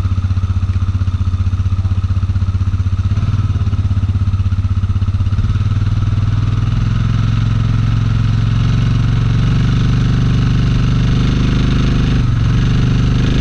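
Arctic Cat ATV engine running under load as it pulls a metal carport on tow straps, getting louder from about three seconds in and holding steady.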